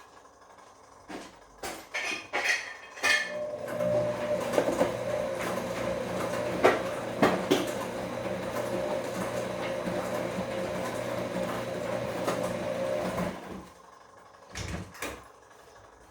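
Bosch Komfort-Klasse washing machine turning its drum in a wash cycle: a few clicks, then a steady motor hum with clunks and clinks of tumbling laundry for about ten seconds, stopping suddenly. Two thumps follow near the end.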